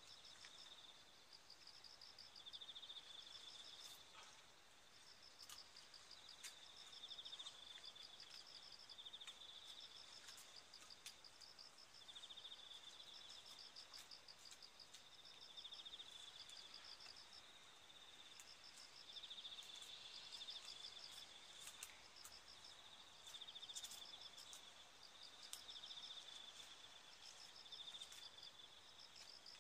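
Faint insects chirping in pulsed trills about a second long at two high pitches, taking turns over and over, with a few faint scattered clicks.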